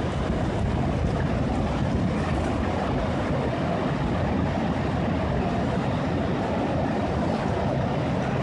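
Steady wind buffeting the microphone over the rush of choppy, fast-flowing river water.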